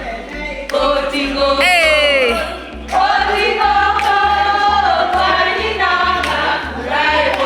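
Music with group singing over a bass line that changes in even steps; about two seconds in, one voice slides down in pitch.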